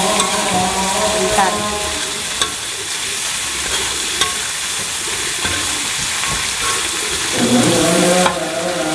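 Bitter gourd, anchovies and chilli sizzling in oil in an aluminium wok while a metal spatula stirs and scrapes through them. The spatula clicks sharply against the pan a few times.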